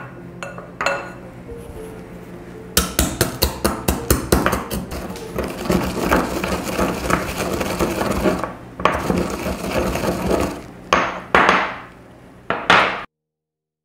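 Set peanut praline (hard caramel with peanuts) being crushed: a quick run of knocks and crunching of the brittle pieces, then a few separate knocks before the sound cuts off abruptly.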